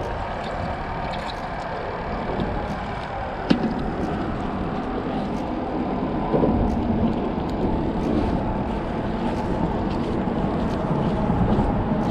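Steady rumble of road traffic crossing a bridge overhead, with a sharp click about three and a half seconds in.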